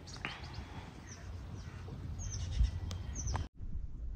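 Small birds chirping: short, high calls that fall in pitch, several in a row early on and more later, over a steady low rumble, with a brief dropout about three and a half seconds in.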